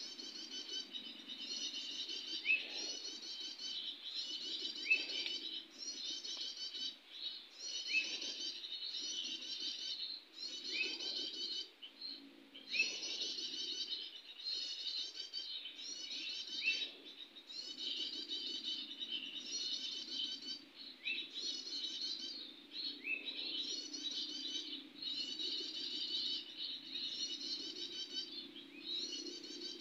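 A small songbird singing a short, rapid chattering phrase over and over at a steady rate, about once every second and a half, each phrase with a quick upslurred note.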